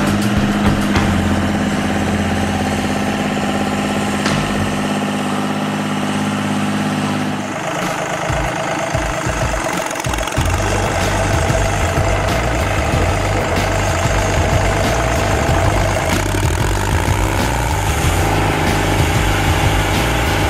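Carlton stump grinder's engine running steadily, its sound changing about eight seconds in as the machine is worked. Near the end the cutter wheel is grinding into a tree stump.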